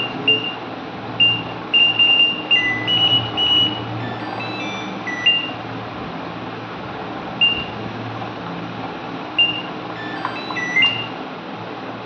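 The buzzer on an IFB top-load washing machine's control board gives short electronic beeps at several pitches as its keys register, some in quick runs and others a second or more apart. The technician says a fault in the PCB has come back.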